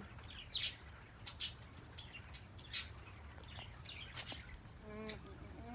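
Wild birds giving short, high chirps, scattered half a dozen times through, over a faint low background hum. Near the end a person starts humming a steady note.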